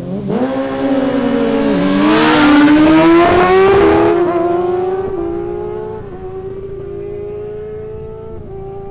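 Two sport motorcycles, a Suzuki GSX-R1000 and a Kawasaki Ninja ZX-6R, launching hard from a drag-strip start line. Their inline-four engines rev up through the gears, the pitch climbing and dropping back at each of several upshifts. The sound is loudest in the first few seconds and fades as they pull away down the strip.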